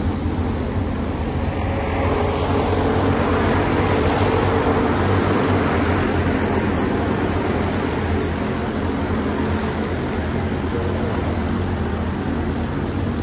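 Engines of a pack of Pro Senior Champ race vehicles running around the oval, swelling as the field comes through the turn toward the fence about a third of the way in, then easing a little as it passes.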